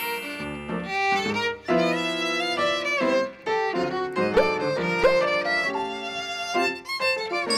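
Background music led by a violin, playing a lively melody with a couple of quick upward slides near the middle.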